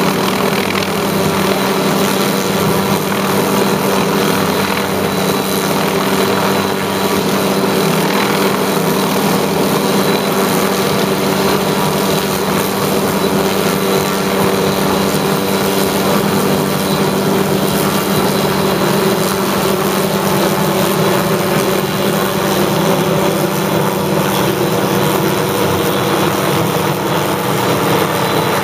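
Hughes 500 helicopter's engine and rotor running steadily while it pulls a stringing line, a constant even drone with no change in pitch.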